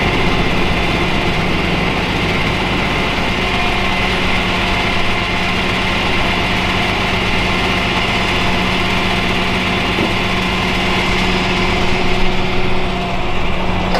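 Flatbed tow truck's engine idling steadily, with road traffic noise behind it.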